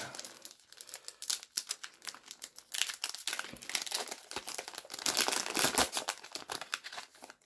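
Foil Pokémon card booster pack being torn open and crinkled, the wrapper crackling irregularly, loudest in two stretches around the middle and towards the end as it is pulled apart.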